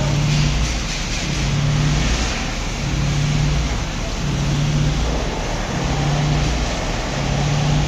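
Machinery running with a steady rushing noise and a low hum that swells and drops away regularly, about once every second and a half.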